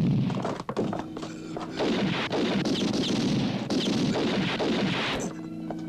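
Gunfire in a film soundtrack: loud, dense surges of shots and clatter. About five seconds in it cuts off suddenly and a held music chord takes over.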